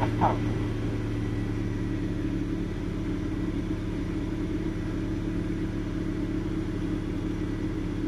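Toyota Noah's engine running steadily at idle, an even low hum with no change in pitch.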